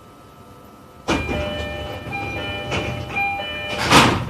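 Door-closing sequence on a stopped E531-series commuter train: a chime of short stepped tones sounds over a hiss. Near the end the doors shut with a loud thump.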